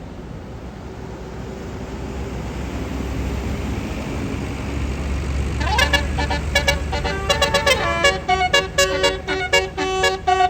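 Tour bus drawing closer with its engine rumble growing louder, then about six seconds in its basuri telolet horn starts playing a quick tune of short notes at changing pitches.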